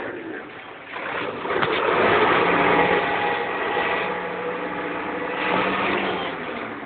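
Engine of a vehicle running steadily as it tows a sled on a rope across snow, growing louder about a second in.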